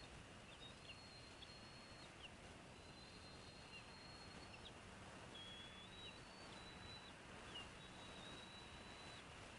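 Faint outdoor ambience with thin, high, steady calls that repeat almost without a break. Each lasts a second or more and ends with a short drop in pitch, over a low hiss.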